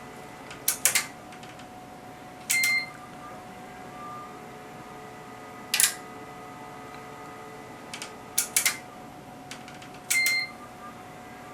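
Bench test instruments being operated by hand: clicks of front-panel keys and relays in small clusters, twice with a short electronic beep, over a faint steady whine from the equipment.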